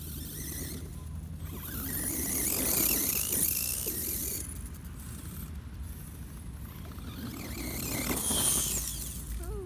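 Electric RC desert buggy on a 3S LiPo driving hard through loose sand: its motor and gears whine, rising and falling with the throttle, over the hiss of sand thrown by its paddle tyres. It is loudest about three seconds in and again near the end.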